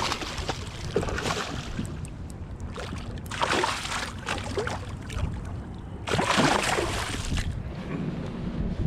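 Open-air noise on a fishing boat: a steady low rumble, with three louder rushing surges about a second, three and a half seconds and six seconds in.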